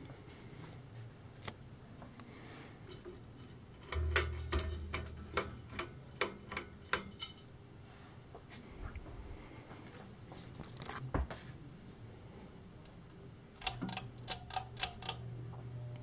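Ceiling fans running, with a low motor hum that comes and goes. Two runs of quick, irregular clicks sound over it, about four seconds in and again near the end.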